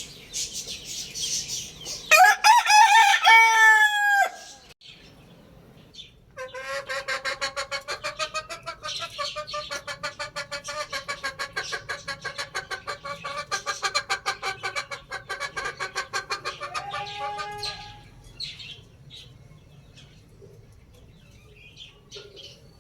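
A rooster crows once about two seconds in, the call ending on a held, falling note. After a short pause a long run of rapid, evenly pulsed clucking calls from the fowl goes on for about eleven seconds.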